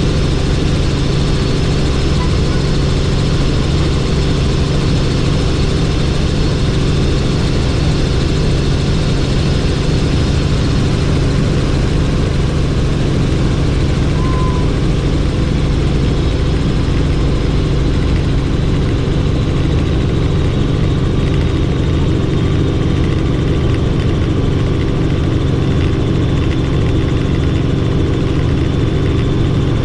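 Helicopter in steady flight: the rotor and turbine run at a constant loud drone with no change in pitch or level.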